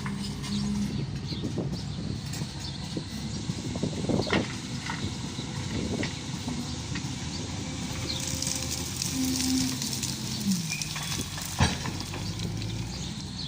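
Wheel loader's diesel engine running steadily, its pitch shifting a little, with occasional knocks and clanks; the loudest is a single sharp knock near the end.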